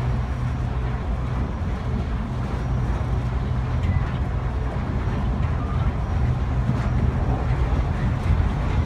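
Otis Hovair air-cushion people mover running steadily along its guideway, heard from inside the car: a steady low hum with an even rushing noise over it.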